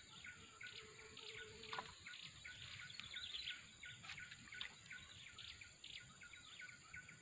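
Faint outdoor ambience of many small birds chirping in short repeated calls over a steady high-pitched insect buzz.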